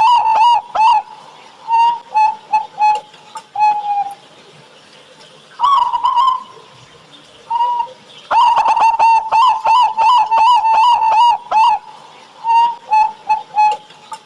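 Zebra doves (local perkutut) cooing in repeated song phrases. Each phrase is a rapid run of short coos, then a few spaced coos ending in a longer drawn note, and the phrase comes round twice.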